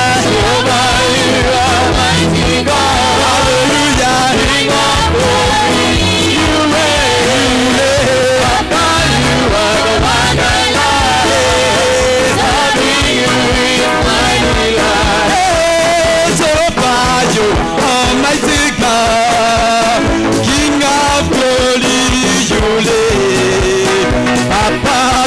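Live church praise and worship music: several singers on microphones lead an upbeat song over amplified instruments, with a bass line moving in steps beneath the voices.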